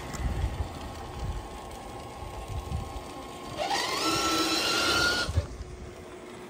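An RC crawler's electric motor and geartrain whining: the pitch rises about three and a half seconds in, holds for about a second and a half, then cuts off suddenly. A low, uneven rumble runs under the first half.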